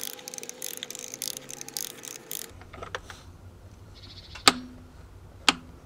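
Ratchet head of an adjustable click-type torque wrench clicking rapidly as it is worked on the oil filter housing cap. Near the end come two sharp, loud clicks about a second apart: the wrench breaking at its 25 Nm setting, the sign that the cap is torqued down.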